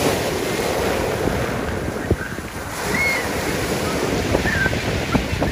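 Sea waves washing on the shore, with wind gusting on the microphone. A few short, high calls come through faintly about midway.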